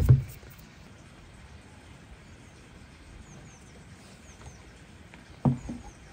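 Dull knocks from glass mixing bowls and hands working flour on a wooden board: one at the start and a quick double knock about five and a half seconds in. Faint short bird chirps in between.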